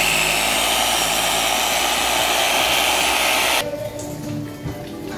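Electric saw running under load as it cuts down a pig carcass's backbone to split it into halves: a steady loud whine with a wavering pitch. About three and a half seconds in it stops abruptly, leaving much quieter sound.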